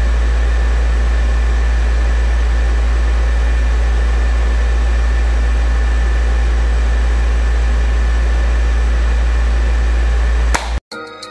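A loud, steady, low mechanical drone with an even hiss over it, unchanging until it cuts off suddenly near the end.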